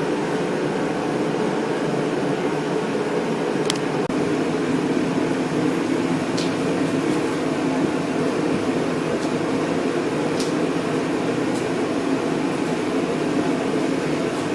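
A steady mechanical hum, even throughout, with a few faint light clicks scattered through it.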